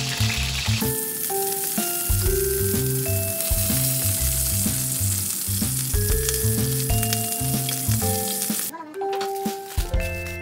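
Beef steak sizzling as it sears in butter and oil in a frying pan, with the hot butter spooned over it. The sizzle stops abruptly near the end.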